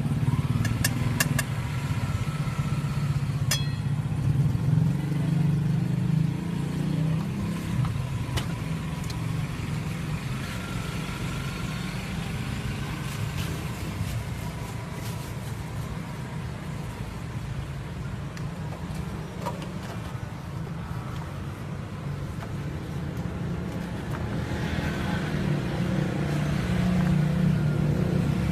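Steady low rumble of passing street traffic, swelling louder at times. A few light metallic clicks of pan lids are heard in the first few seconds.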